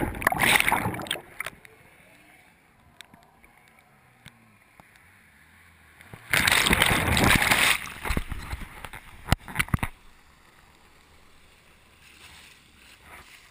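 Lake water splashing and sloshing against a GoPro's waterproof housing as it floats, with loud splashing near the start and again about six seconds in, a few sharp knocks after that, and quieter, muffled stretches while the camera is under the surface.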